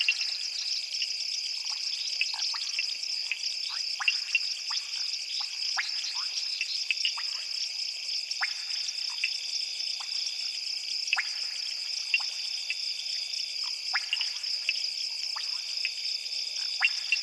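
A frog and insect chorus. A steady high-pitched insect trill runs throughout, with many short, sharp frog calls scattered irregularly through it, two or three a second.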